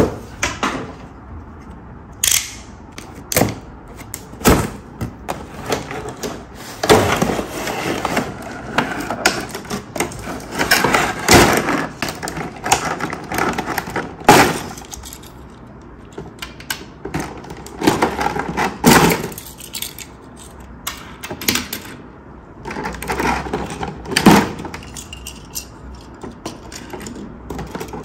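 Toy packaging and plastic track pieces being handled: irregular crackling and rustling, broken by sharp clicks and knocks.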